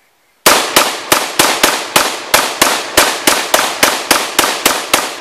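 WASR-10 AK-47 rifle in 7.62×39 mm, fired one-handed, letting off a rapid string of about sixteen semi-automatic shots at roughly three to four a second. The string starts about half a second in.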